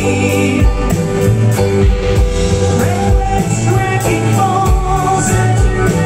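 Bluegrass-style band playing live through a PA: lead vocal over acoustic guitar, mandolin, upright bass and drums, with a steady beat.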